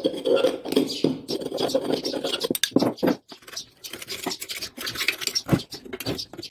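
Metal screwdriver tip scraping and scratching dirt out of the bearing seat in a washing machine motor housing: rapid strokes for the first couple of seconds, then a brief pause and a few scattered scrapes and clicks.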